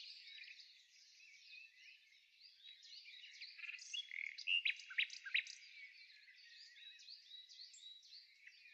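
Birdsong: many small birds chirping and twittering together, with a few sharp, louder chirps about four to five seconds in.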